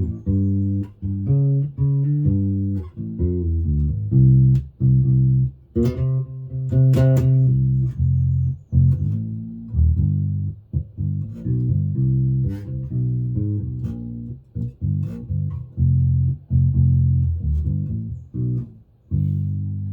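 Hammer 5-string mini electric bass played through a Warwick BC10 bass amp: a steady run of plucked notes and short phrases, with a few brighter, sharper-attacked notes about six to seven seconds in, and a held note fading away near the end.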